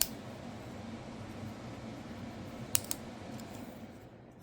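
Sharp clicks of a folding multitool being handled: one at the start and two close together nearly three seconds in, over faint room noise.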